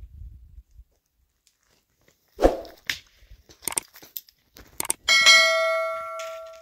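Knocks and clatter, then a metal object struck once, ringing with several clear tones that fade over about a second and a half.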